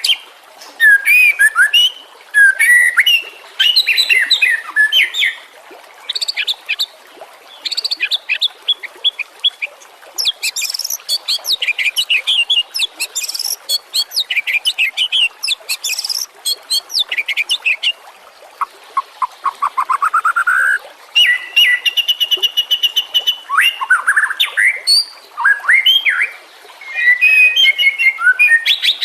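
White-rumped shama (murai batu) singing a long, varied song of clear whistled phrases, rapid trills and chirps, broken by short pauses between bursts. About two-thirds through comes a run of quick rising sweeps in a lower voice.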